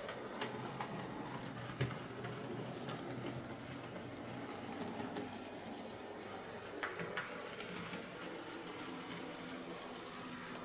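Hornby J83 0-6-0T OO gauge model locomotive running along the track after repair: a steady motor hum with wheels on the rails, broken by a few sharp clicks.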